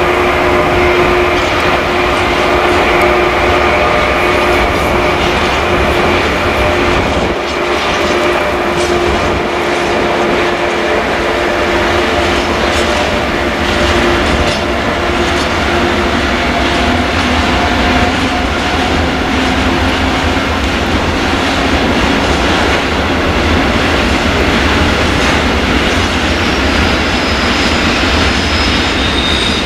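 Freight train of hopper wagons rolling past on the rails. A steady whine in the first half fades out around the middle, and high-pitched wheel squeal comes in near the end.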